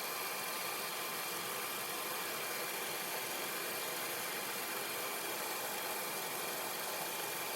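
Thiel Duplex 58 milling machine running steadily, a constant mechanical hiss with several faint steady whining tones above it.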